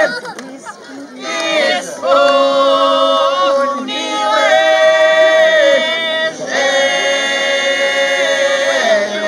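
A group of voices singing a cappella, a birthday song. They come in about a second in and hold long, drawn-out notes in slow phrases.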